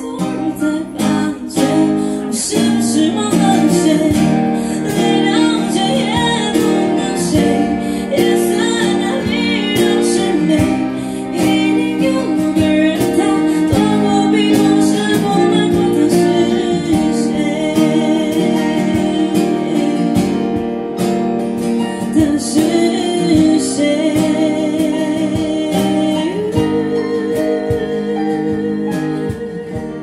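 Live acoustic music: a woman singing into a microphone over a strummed acoustic guitar, with a cello playing along.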